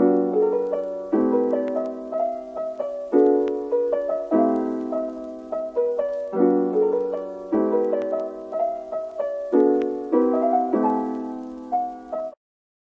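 Background piano music: a chord struck about once a second and left to fade, with a melody on top. It stops just before the end.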